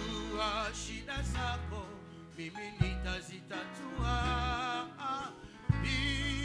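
Swahili gospel worship song: a singer's wavering voice over held bass notes and instrumental backing, with a few sharp beats.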